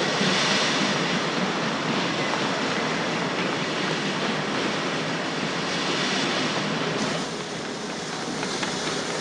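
Steady hiss and rumble of a steam locomotive letting off steam under a station roof. It drops a little quieter about 7 seconds in.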